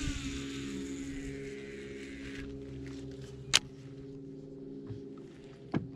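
Baitcasting reel spool whirring as line pays out, its whine falling in pitch and fading over about two seconds, over a steady low hum. A single sharp click comes about three and a half seconds in, with a smaller one near the end.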